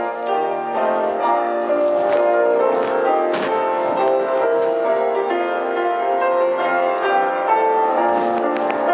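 Slow instrumental invitation music led by piano, playing held chords that change every second or so.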